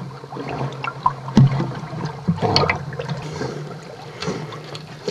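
Water gurgling and sloshing against a camera held at the waterline, stirred by a Newfoundland dog paddling past, with irregular splashy clicks over a steady low hum.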